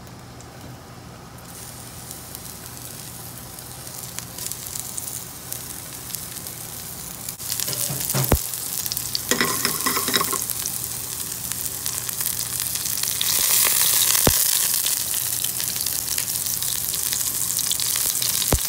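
Lion's mane mushroom slices frying in hot oil in a nonstick pan. A faint hiss turns into a loud, dense sizzle about seven seconds in, when the mushrooms hit the oil, and swells further later on. Three sharp clicks sound over it.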